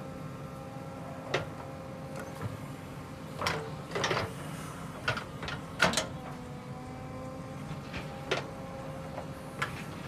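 A JCB 3DX backhoe loader's diesel engine running steadily as the rear bucket digs soil, with a scatter of sharp knocks and scrapes from the bucket and arm, the loudest about six seconds in.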